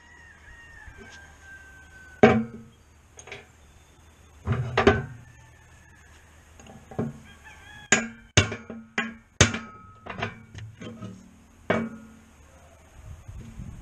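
Hammer striking a disk harrow's bearing and its steel bearing block to knock the bearing out: about a dozen sharp metallic blows at irregular intervals, most of them bunched in the second half, some ringing briefly. Near the start a farm bird gives a drawn-out call that falls in pitch.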